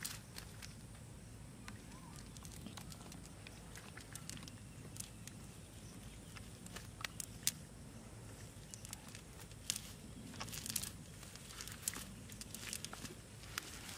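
Nylon fishing net and dry grass rustling and crackling as fish are pulled out of the net by hand, with scattered sharp clicks over a faint steady low rumble.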